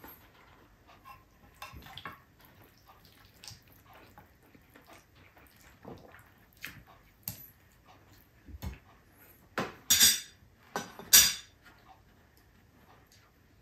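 A metal spoon scraping and clinking against a glass baking dish and a plate while serving food, with scattered light clicks and a few louder clatters about two-thirds of the way through.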